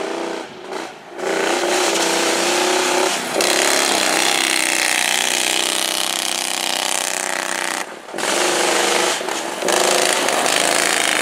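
Racing lawn mower engines running hard at high revs, with a rattly, buzzing tone. The sound breaks off abruptly for brief moments a few times.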